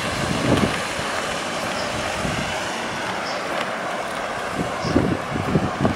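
Street ambience: a steady wash of distant road traffic, with irregular low buffeting of wind on the microphone near the end.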